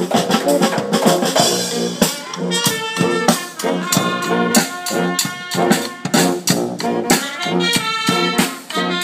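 Brass marching band playing: sousaphones and trombone carrying the tune over snare drum, bass drum and cymbals keeping a steady beat.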